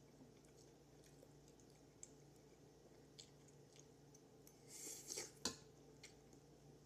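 A person slurping wide chow fun rice noodles off a fork: a short wet slurp about five seconds in that ends in a sharp smack, after a few faint clicks.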